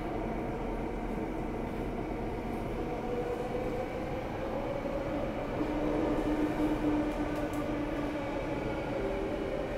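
Singapore MRT Downtown Line train running through a tunnel, heard inside the passenger car: a steady rumble of wheels and running gear, with the motor's whine holding and shifting pitch, one tone rising about a third of the way in and a lower one held through the middle.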